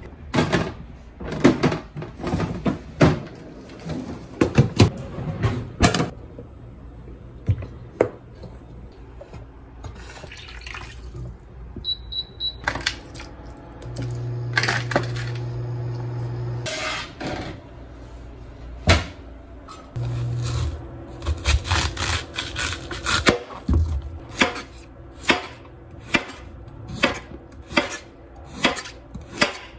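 Kitchen work sounds: dishes and containers clattering and knocking, a brief run of high electronic beeps, and a steady appliance hum for a few seconds. Near the end, evenly paced knocks like a knife chopping on a cutting board.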